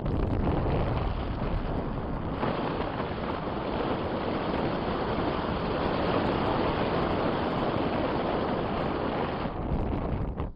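Strong wind buffeting the microphone: a loud, steady rush of wind noise that drops away suddenly near the end.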